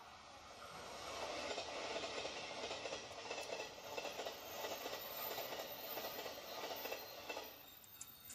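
Tweezer tip rubbing over a dry-transfer lettering sheet to burnish the lettering onto a model's surface: a soft, continuous scratchy rubbing that fades out near the end.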